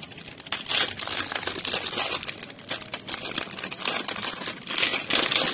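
Clear plastic wrapping crinkling and rustling in irregular bursts as an amplifier circuit board is handled and turned over.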